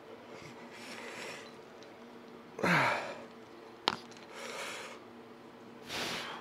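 A man's forceful exhales during single-arm cable tricep pushdowns, one about every second and a half. The loudest, about two and a half seconds in, ends in a short grunt. A single sharp click comes just before the four-second mark, over a steady low hum.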